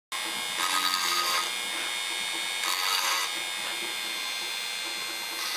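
Handheld rotary tool running at high speed with a steady whine, its bit grinding against the work in two louder stretches, about half a second in and again near three seconds.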